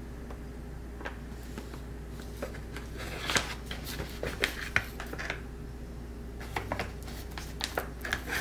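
Flour being scooped from a paper bag with a wooden spatula into a glass bowl: scattered rustles, scrapes and light taps, few at first and coming thick from about three seconds in, over a steady low hum.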